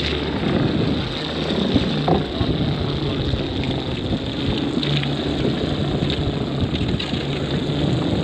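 Steady rushing ride noise from an electric unicycle rolling over a wet wooden boardwalk: wind over the microphone and tyre hiss on the wet planks, with a low hum and a few faint knocks.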